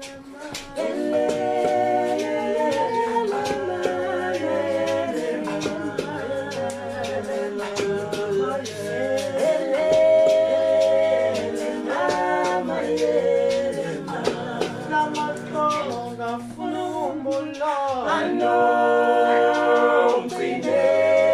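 Male a cappella vocal group singing in harmony, with a deep bass voice holding low notes under the upper parts.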